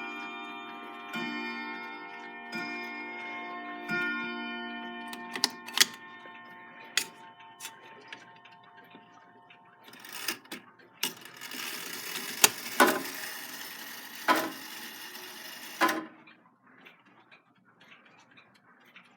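A chiming clock's bells ringing and fading away, with three more low strikes in the first few seconds and the clock ticking underneath. About eleven seconds in comes a rattling, whirring noise with several sharp clicks, which stops suddenly near sixteen seconds; faint ticking follows.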